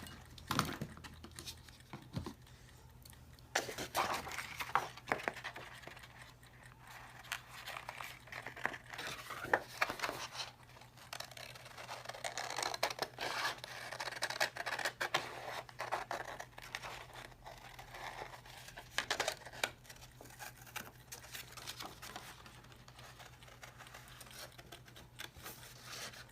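Scissors cutting a bird shape out of cardstock: irregular snips and scraping, with paper rustling as the card is turned.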